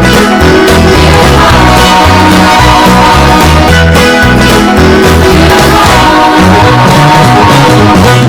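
Loud upbeat music with guitar, a steady beat and bass.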